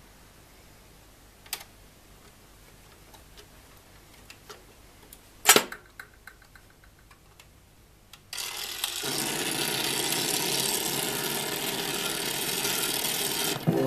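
Luxor RTW 7A record changer cycling: a light click, then a sharp clack about five and a half seconds in as the record lands on the turntable, followed by faint mechanism ticks. About eight seconds in the stylus sets down and a loud, steady hiss of shellac 78 surface noise runs on.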